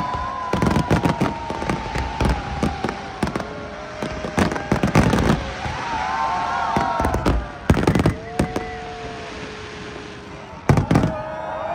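Fireworks display: volleys of bangs and crackles come in clusters about half a second in, near five seconds, near eight seconds and about eleven seconds in. Long held whistling tones sound between the volleys.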